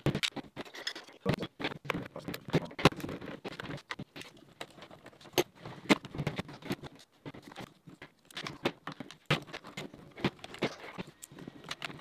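CSI S.T.A.R. XR-5 plastic airsoft rifle being taken apart by hand: a quick, irregular run of clicks, knocks and rattles as its plastic housing pieces, pins and screws are handled and set down on the table.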